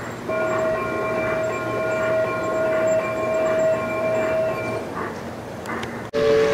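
Garden-scale model locomotive's sound-system horn blowing one long steady blast lasting about four and a half seconds. After a sudden break near the end, a lower two-note horn starts and dips slightly in pitch.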